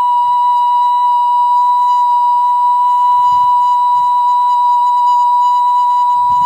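Background music: a flute holding one long, steady note.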